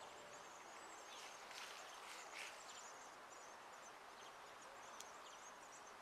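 Faint outdoor ambience: small birds twittering high and distant, with a couple of soft rustles about two seconds in.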